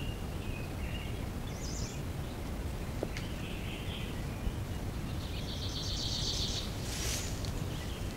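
Woodland ambience: songbirds calling in short phrases, including a rapid trill about six seconds in, over a low steady background hiss. A faint tick and a brief rustle come near the middle and near the end.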